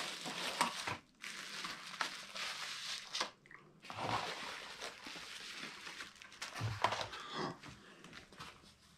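Plastic bubble wrap crinkling and crackling as it is handled and peeled off a package, in stretches broken by short pauses about a second in and around three and a half seconds.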